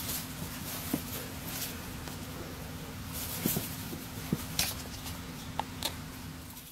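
Scarlet macaw playing with a hand on carpet: a few faint, scattered clicks and rustles from its beak and feathers, over a steady low hum.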